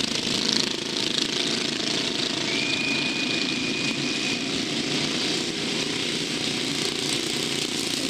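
Pacer motorcycles of a motor-paced track race running laps, a steady, continuous engine drone. A thin, steady high tone sounds for about two seconds in the middle.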